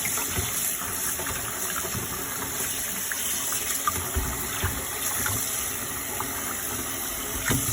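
Kitchen tap water running steadily into a sink, with a few faint clicks.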